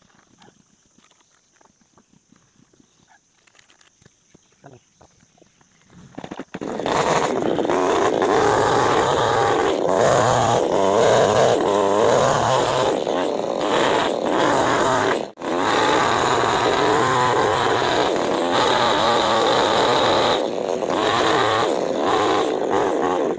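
After about six quiet seconds, a petrol chainsaw starts up and runs at full throttle, cutting along a thick curved log. The saw drops out once, briefly, near the middle.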